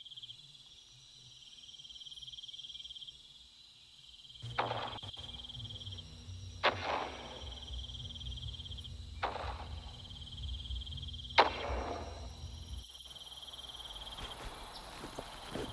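Crickets chirping in repeated trills as a soundtrack ambience, broken by four sharp bangs about two seconds apart, the last the loudest. A low rumble runs under the middle stretch.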